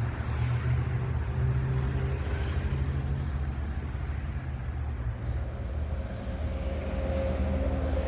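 A vehicle engine idling: a steady low rumble, with a faint higher hum joining about five seconds in.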